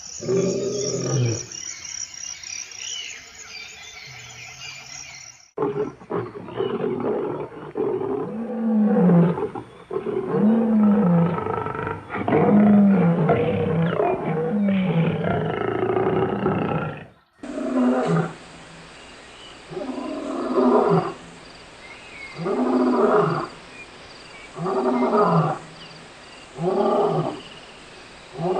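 African lions roaring: a run of deep, repeated roars layered over one another, broken by abrupt cuts, then a bout of short grunting roars about two seconds apart that closes the roaring sequence.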